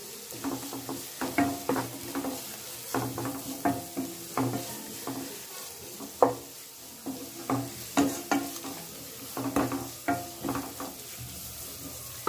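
Wooden spatula stirring sliced onions, green chillies and curry leaves in a kadai of sizzling oil, the onions being sautéed. Repeated irregular strokes, about one or two a second, knocking and scraping against the pan over a steady frying hiss.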